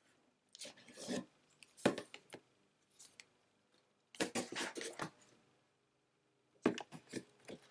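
Cardboard game board and box being handled: several short bursts of cardboard scraping and rustling as the board is lifted and set down beside the box.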